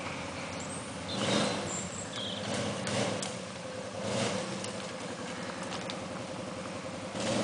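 Off-road vehicle engine running steadily, surging louder four times as it works along a rutted, muddy track.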